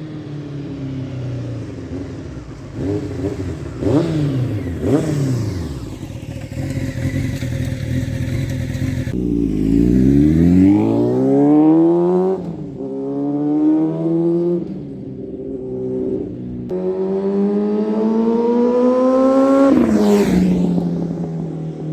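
Honda CBR streetfighter motorcycle engine running through a homemade exhaust muffler, revving and accelerating: its pitch climbs in several long runs, each broken by a quick drop as it shifts up, with the loudest stretches about ten and nineteen seconds in.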